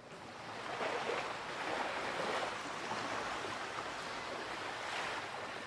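Steady wash of open-sea waves and wind, fading in over about the first second.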